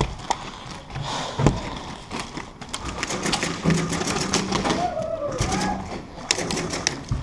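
Airsoft electric guns firing in rapid bursts: a clatter of quick clicks, thickest from about three to five seconds in and again shortly before the end.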